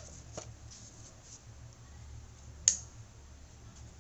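Hands handling a corrugated cardboard box, with faint scuffs and light taps, and one sharp click about two-thirds of the way through.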